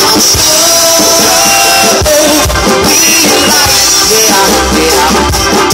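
Rock band playing live: electric guitars and a drum kit, loud, over a steady drum beat.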